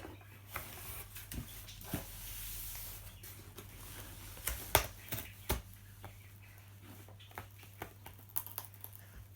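Scissors and hands working at the sides of a cardboard box: scattered sharp clicks and taps, with a short scraping hiss about two seconds in, over a steady low hum.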